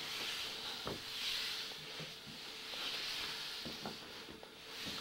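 Someone climbing a narrow stone stairway: slow breathing that swells in and out every second or two, with a few soft footfalls on the stone steps.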